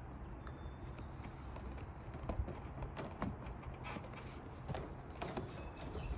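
Scattered light clicks and taps from hands-on installation work, over a steady low rumble.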